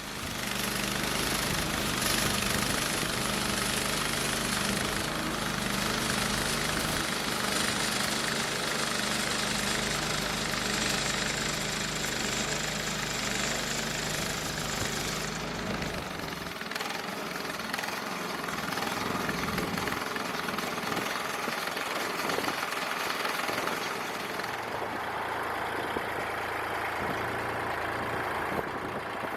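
Gas engine of a portable band sawmill running steadily, with a high noisy hiss over it. About halfway through, the sound drops and changes, and the engine keeps running more quietly.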